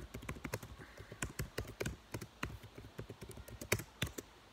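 Fingers tapping and typing on a touchscreen close to the microphone: a run of irregular clicks and taps, several a second, the loudest one near the end.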